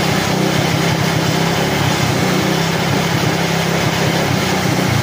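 Coolster 250cc ATV's single-cylinder engine running steadily, started again after a new wiring harness.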